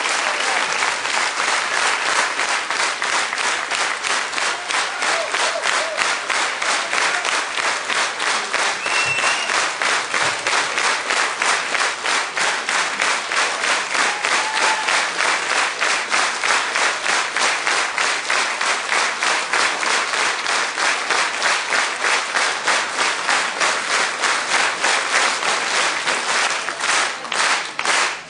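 A large crowd applauding: scattered applause that settles into rhythmic clapping in unison at about three claps a second, growing crisper near the end.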